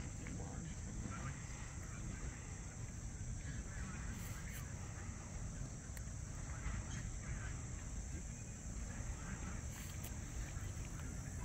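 Steady high-pitched drone of insects in the trees, unbroken throughout, with faint distant chatter from the walking crowd underneath.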